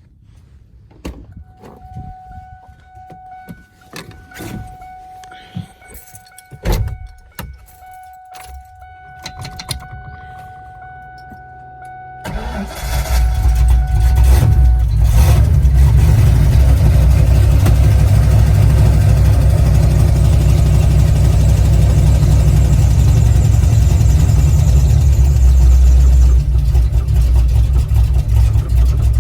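Carbureted Ford 302 V8 with an E303 camshaft being cold-started. For about twelve seconds there are only clicks and knocks under a steady electronic tone with short breaks. Then the engine catches abruptly and runs loud and steady at a cold-start idle.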